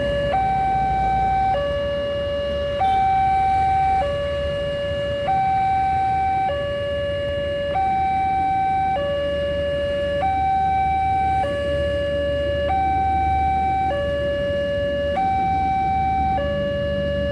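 Railway level-crossing warning siren sounding its alarm: two tones, a higher and a lower one, alternating about every second and a quarter. The alarm signals an approaching train.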